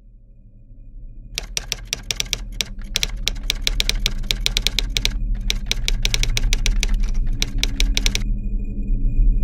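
Rapid runs of sharp clicks, like fast keystrokes, starting about a second and a half in, pausing briefly past the middle and stopping near the end. They play over a low steady drone that grows louder throughout, with a thin high tone left once the clicks stop.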